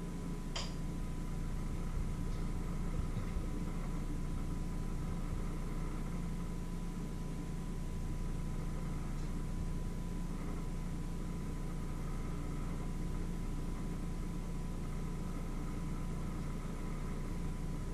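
Steady low mechanical hum with a faint constant high tone over it, and a single sharp click about half a second in.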